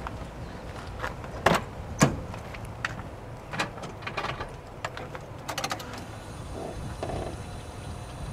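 Pickup truck's driver door being opened: two sharp latch knocks about one and a half and two seconds in, then lighter clicks and a brief rattle of small clicks, with the engine not yet running.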